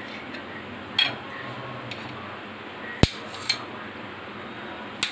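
Metal knife clinking and scraping against a ceramic plate while cutting semolina halwa into pieces: about four short sharp clinks, the loudest about three seconds in.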